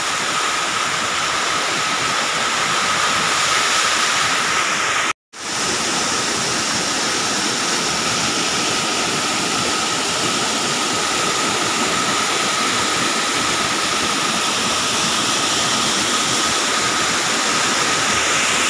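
Waterfall rushing steadily down a rocky gorge, a loud, even noise of falling water. It breaks off for an instant about five seconds in.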